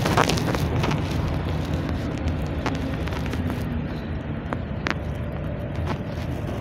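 Cabin noise inside a moving GAZ Next minibus: steady engine and tyre rumble, with scattered short clicks and rattles from the body and fittings.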